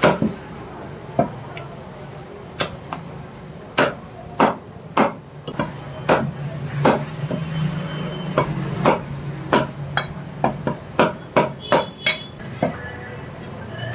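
Butcher's cleaver chopping chicken into pieces on a chopping block: a series of sharp chops, spaced out at first, then coming about two a second from a few seconds in.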